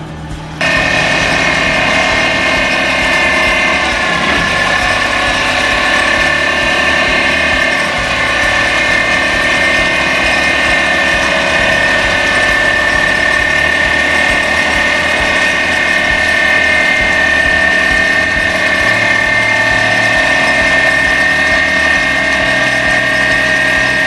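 Excavator-mounted hydraulic vibratory pile hammer running as it drives a pile: a loud, steady mechanical whine and buzz that starts abruptly less than a second in.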